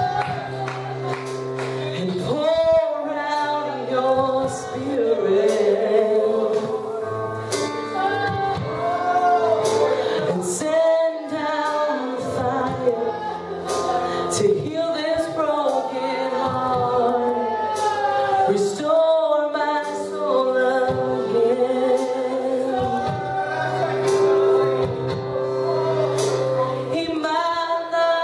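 Live gospel worship music: a worship team and congregation of men and women singing a worship song together over steady held accompaniment chords.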